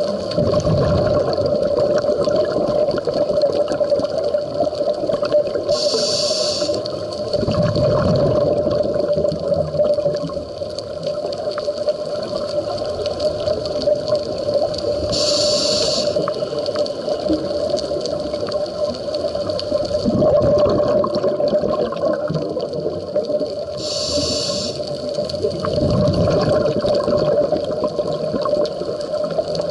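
Scuba diver breathing through a regulator underwater. There are three short hissing inhales about nine seconds apart, and rumbling bursts of exhaled bubbles, over a steady hum.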